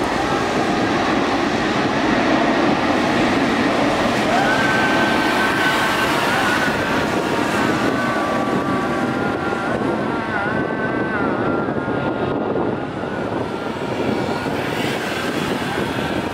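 Jet airliner engines running loud: a steady roar with a whining tone that wavers in pitch, easing slightly over the last few seconds.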